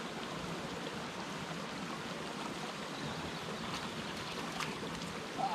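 A small mountain stream running: a steady, even rush of water.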